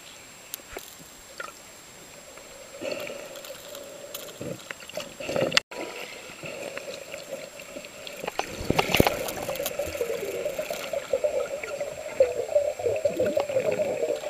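Water gurgling and sloshing with scattered clicks, and a wavering hum that grows louder from about eight seconds in.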